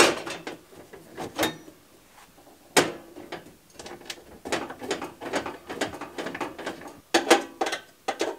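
Sheet-metal breaker panel cover and door being handled and fitted back onto the panel: a series of metallic clanks, clicks and rattles, with sharp knocks at the start, about three seconds in, and a pair near the end.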